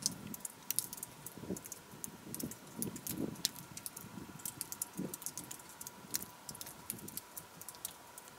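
Water dripping inside a lava tube: irregular small drips and plinks hitting rock, some with a low ringing note, almost musical.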